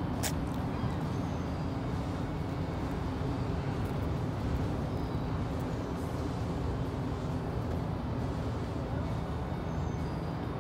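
Steady low rumble of outdoor background noise, with one short click just after the start.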